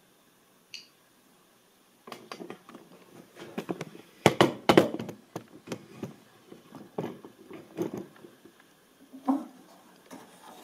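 Irregular knocks, taps and rustling of hands handling a brushless camera gimbal and its wiring, the loudest knocks about four to five seconds in, after a single brief high click about a second in.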